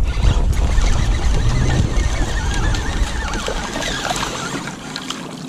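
Wind rumbling on the camera microphone, with water and kayak noise; the rumble eases off about four seconds in. Near the same point a small bass splashes at a topwater frog lure on the surface.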